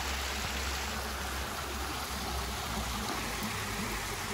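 Steady rushing road and wind noise inside a moving car, over a low, even rumble.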